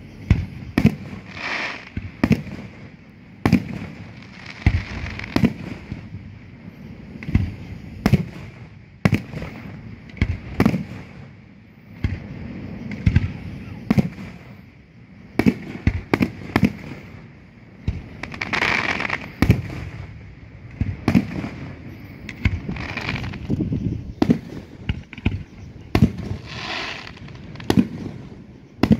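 Aerial fireworks shells bursting overhead: a run of sharp booms at uneven intervals, sometimes several a second, with a few longer stretches of hissing noise between them.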